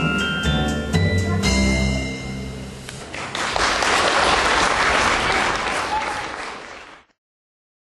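The last bars of a song's instrumental music, followed from about three seconds in by an audience applauding; the sound cuts off suddenly near the end.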